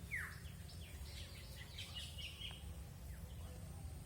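Birds calling: one clear downward-sweeping chirp at the start, then a quick run of short chirps over the next two seconds or so, with a steady low rumble underneath.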